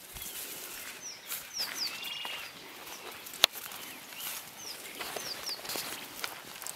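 Wild birds chirping in the bush, short downward-sliding notes in groups of two or three, with one arched whistle, over footsteps and brush rustling. A single sharp click about halfway through.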